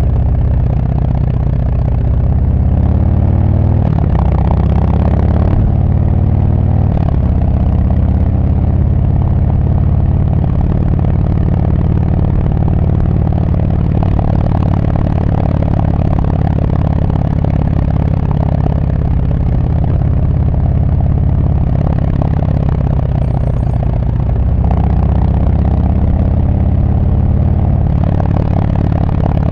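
Harley-Davidson Sport Glide's Milwaukee-Eight 107 V-twin under way through Screamin' Eagle Street Cannon mufflers, a deep steady rumble. The pitch climbs and drops back several times in the first several seconds and again past twenty seconds, as the bike accelerates and changes gear.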